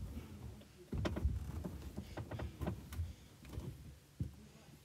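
Light clicks and knocks from a wooden cabinet door and its metal handle being fiddled with, at irregular intervals.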